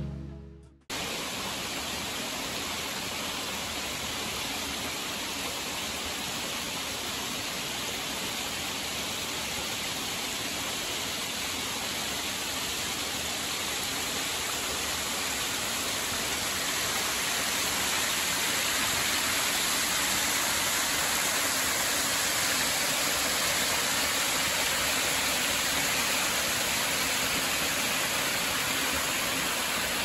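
Steady rush of water from a thin mountain waterfall and its stream splashing over mossy rock, the streams running full with spring water. The rush grows slightly louder about halfway through.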